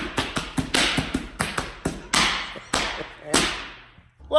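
A quick, irregular run of sharp taps or slaps, about three a second, each trailing a short echo. They thin out and stop near the end.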